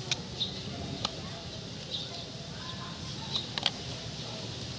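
A few sharp metallic clicks and taps of tools and small distributor parts being handled, the loudest about three and a half seconds in, over a low steady background with short high chirps every second or two.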